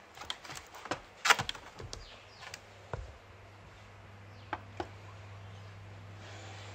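Thin clear plastic RC car body shell crinkling and clicking as it is handled, lifted off and set back down on a kitchen scale: a quick run of crackles and clicks, the loudest about a second in, then two short clicks a little after four seconds, over a steady low hum.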